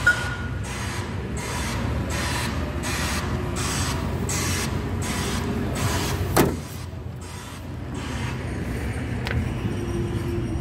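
A steady low mechanical rumble with a rhythmic hiss pulsing about twice a second. A sharp knock about six seconds in, after which the sound is quieter.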